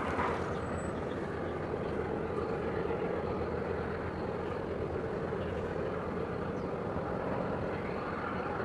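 Steady low engine rumble, even and unbroken.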